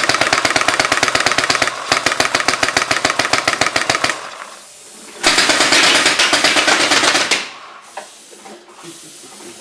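Twin pneumatic paintball markers on a turret firing rapid automatic bursts, about a dozen shots a second. A burst of about four seconds is followed by a short pause, then a second, louder burst of about two seconds.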